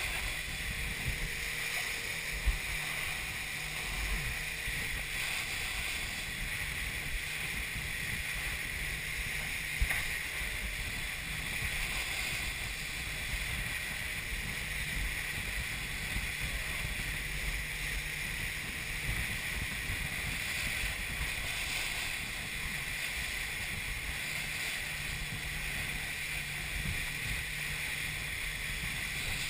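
Motorboat under way: its engine runs steadily under the noise of water and wind rushing past. Two sharp knocks stand out, one a couple of seconds in and another about ten seconds in.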